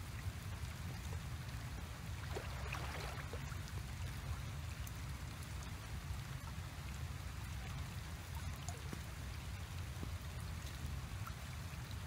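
Steady rush of flowing water over a constant low rumble.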